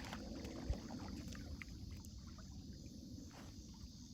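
Faint, steady low rumble of outdoor ambience with a few light clicks and one short dull thump about two-thirds of a second in.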